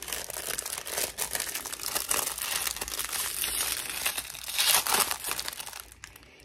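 Foil Pop-Tarts pouch crinkling as it is handled and pulled open by hand: a dense run of crackles, loudest about five seconds in, that dies down near the end.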